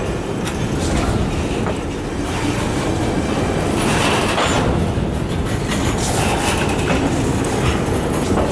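Freight train rolling past, its wheels clattering over the rail joints with scattered clicks and brief wheel squeals.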